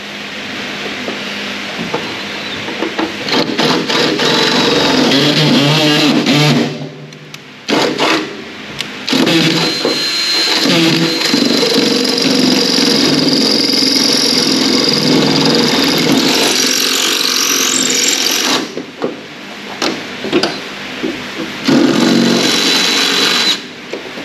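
Ryobi cordless drill boring through the sheet-steel firewall, running in long stretches with a high squeal from the bit cutting the metal. It stops briefly about seven seconds in and again around nineteen to twenty-one seconds, then drills on.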